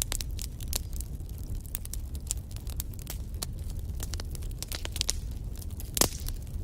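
Wood logs burning in a fireplace, crackling: frequent sharp pops and snaps over a steady low rumble of the flames, with one louder pop near the end.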